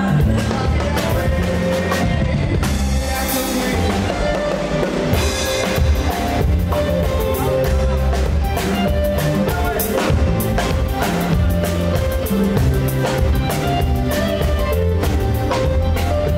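Live band playing an upbeat song, with the drum kit (bass drum, snare and cymbals) to the fore under saxophone and other instruments.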